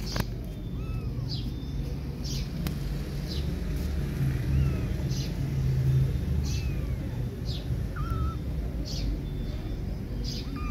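Very young kittens giving a few faint, thin mews now and then. Short high chirps repeat about once a second over a steady low rumble.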